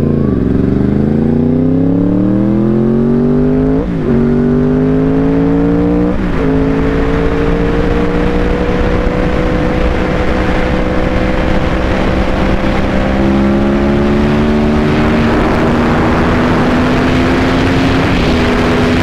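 Yamaha R1 sportbike's inline-four engine accelerating hard through the gears, its pitch climbing and dropping at quick upshifts about four and six seconds in. It then pulls on steadily at high speed, with wind rush building near the end.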